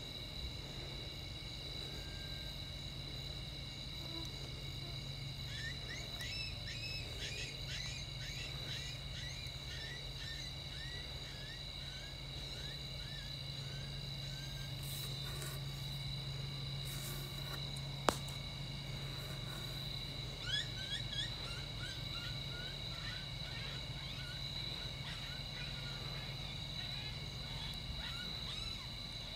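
Night insects trilling steadily on several high pitches over a low hum. Two stretches of quick, short, squeaky chirps rise over them, and there is one sharp click a little past the middle.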